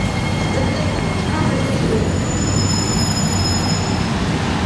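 Singapore East-West Line MRT train running into the platform and braking, with a steady low rumble and thin high-pitched squeals. About halfway through, the squeal jumps to a higher pitch, then dies away near the end.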